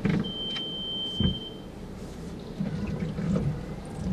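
A steady high electronic beep held for about a second and a half inside a car, with a dull thump at the start and another about a second in, then low rustling.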